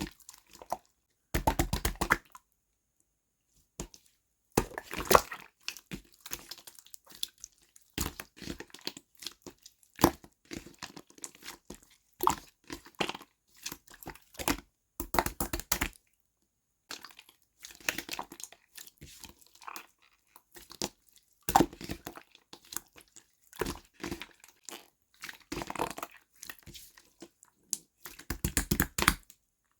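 Clear slime being squished, poked and pressed by hand, giving repeated short runs of sticky clicks and pops with brief pauses between them.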